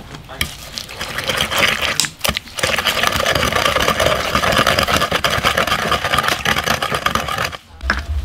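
Wooden pestle pounding rapidly in a large wooden mortar, mashing a wet red paste with quick, even strokes. The pounding starts about a second in and cuts off suddenly near the end.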